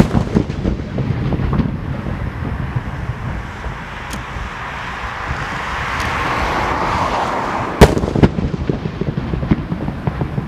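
Aerial firework shells bursting, each a sharp bang followed by rolling echo and rumble: one right at the start and another about eight seconds in. In between, a hiss swells up and fades away, with scattered smaller cracks.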